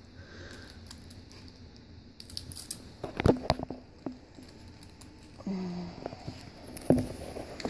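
Service dog vest being handled: its plastic buckles and metal leash clip clicking and jingling, with a few sharp clicks about three seconds in and again near the end. A brief low hum-like sound comes in about five and a half seconds in.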